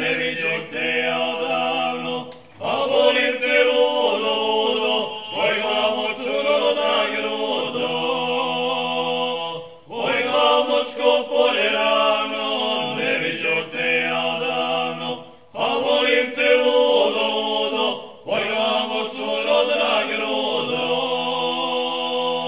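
A group of young men singing a folk song together without instruments, in long held notes, breaking off briefly for breath four times.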